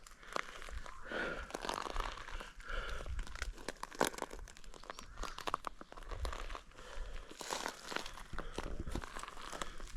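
Footsteps crunching through dry leaf litter and undergrowth: an irregular run of crackles and snaps.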